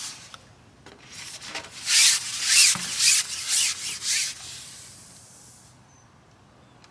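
Carbon fishing pole rubbing as it is slid out along its rest and through the angler's hands: a rough, scraping hiss that builds from about a second in into a run of loud surges for around two seconds, then fades away.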